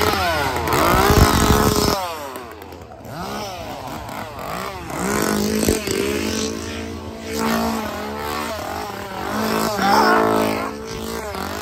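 Two-stroke petrol chainsaw revving close by in repeated surges, the pitch sweeping up and down; loudest about a second in, then dropping to a lower steady run with further surges, the last near the end.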